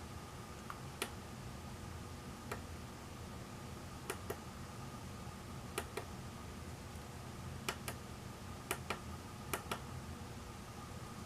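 Sharp clicks of a small pushbutton on the Dutchtronix oscilloscope clock kit being pressed and released, mostly in quick pairs, about seven presses spread unevenly as the clock's menu settings are stepped through. A steady low hum sits underneath.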